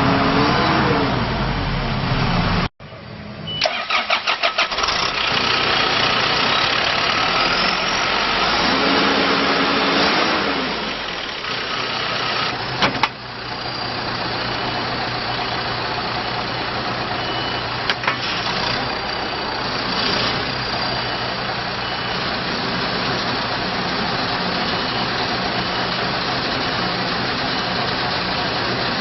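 John Deere 310J backhoe loader's diesel engine running, then after an abrupt break it is cranked with a quick run of strokes, catches about four seconds in, and settles into a steady idle.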